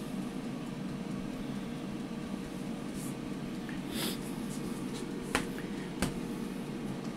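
Air fryer running with a steady fan hum as it cooks. A few short sharp clicks come about four, five and a half and six seconds in.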